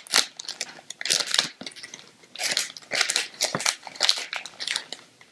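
A foil blind-bag pouch crinkling and crackling in the hands in irregular bursts as it is pulled and torn open at the top.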